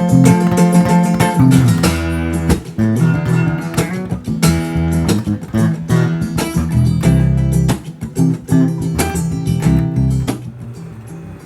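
Background guitar music: plucked and strummed guitar over a low bass line, dropping in level near the end.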